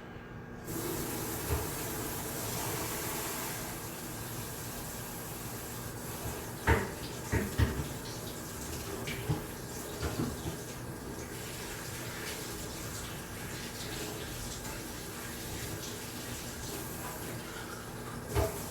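Shared study room ambience: a steady rushing hiss that starts suddenly about a second in, under scattered soft knocks and clicks.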